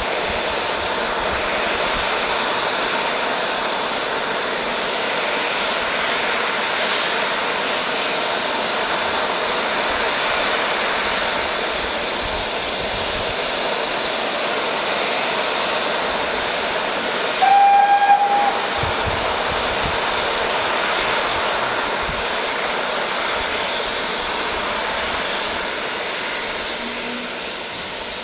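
Steady rushing noise of a steam-hauled train running, heard from an open carriage window. About 17 seconds in comes one short steam-whistle toot on a single pitch, the loudest sound, from the train's BR Standard Class 2 steam locomotive.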